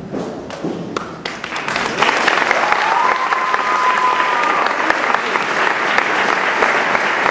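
Theatre audience applause: a few scattered claps at first, swelling into full, dense clapping about two seconds in. A long, high held cheer from the crowd rides over it for a second or two midway.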